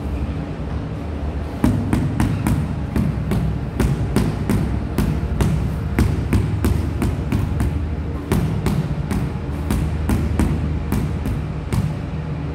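Rubber mallet tapping a large ceramic floor tile, a steady run of sharp knocks about three a second that starts a couple of seconds in, bedding the tile into its mortar.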